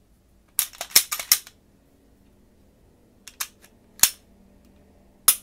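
Glock 17 pistol's slide and frame clacking and clicking as the freshly reassembled, lubricated gun is worked by hand: a quick run of about five sharp clacks about half a second in, then single sharp clicks, the last and loudest near the end.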